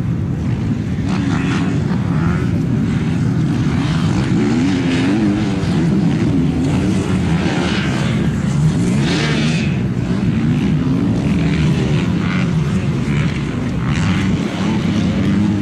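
Motocross bike engines revving on a dirt track, their pitch rising and falling over and over as the throttle is opened and closed through the jumps.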